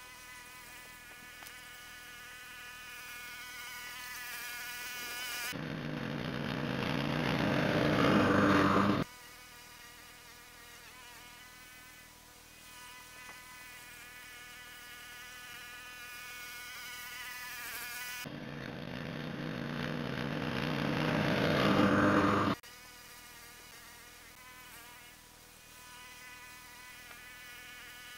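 Lawn mower engine in fast-forward, its running sound sped up into a high-pitched whine. It grows louder twice as the mower comes close, each time ending in a few seconds of loud close-by mowing that cuts off abruptly.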